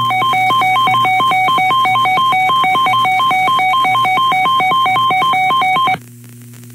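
Electronic alert tone from a weather alert broadcast: two buzzy pitches, one high and one lower, alternating rapidly and unevenly, with a steady low hum under it. It is the attention signal that comes just before a spoken weather warning, and it cuts off abruptly about six seconds in.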